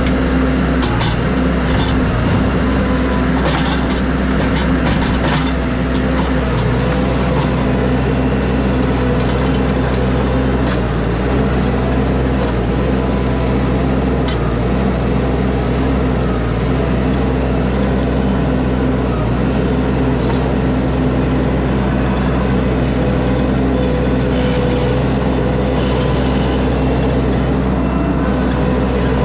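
An engine running steadily at a constant speed, with light clicking and rattling during the first several seconds.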